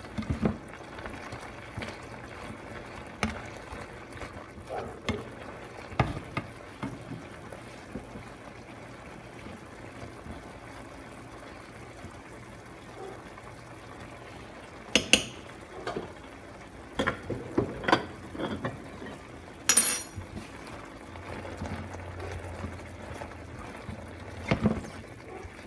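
Chicken breast cooking in butter and soy sauce in a skillet: a steady sizzling, bubbling hiss. A few sharp knocks and clinks come through it, the loudest about twenty seconds in.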